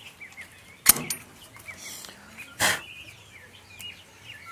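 A sharp click about a second in and a short scraping rush a little later as a chicken-wire coop door is opened and passed through, over faint scattered bird chirps.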